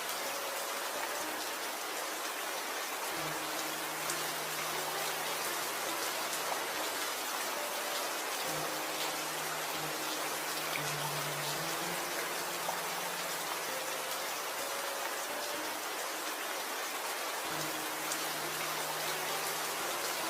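Steady rain, a dense even hiss of falling drops with faint scattered drop ticks, over soft slow background music of held low notes that change every second or two.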